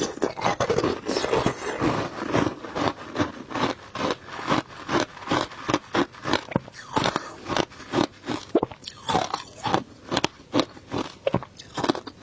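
Frozen shaved passion fruit ice being bitten and chewed: a rapid, even run of crisp crunches, about three a second.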